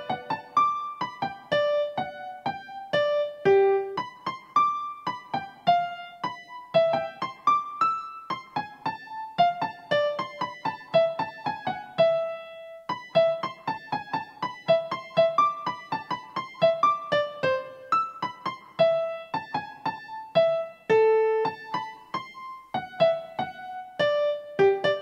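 Solo piano-toned keyboard music: a melody of separately struck notes over chords, played at an unhurried, even pace with no break.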